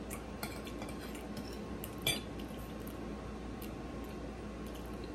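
Metal cutlery clinking and scraping lightly on a ceramic dinner plate of food, a few scattered clicks, the loudest about two seconds in.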